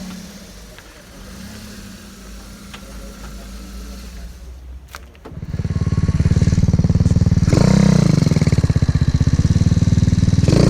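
Motorcycle engine: a low steady running at first, then, about five seconds in, a much louder, close engine running hard with rapid firing pulses, its revs rising and falling briefly near the middle of that stretch.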